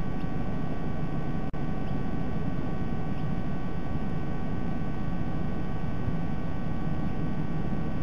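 Steady low noise with several faint, constant whine tones over it: the background hum and hiss of a live nest-camera microphone. It drops out for an instant about a second and a half in.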